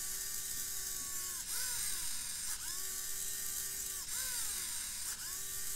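Continuous-rotation micro servo spinning, its gear-motor whine holding a steady pitch for over a second, then dipping and climbing back, in a cycle that repeats about every two and a half seconds.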